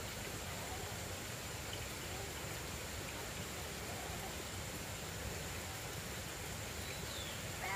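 Steady rural outdoor background noise with a faint, constant high-pitched whine. A cat starts to meow right at the end.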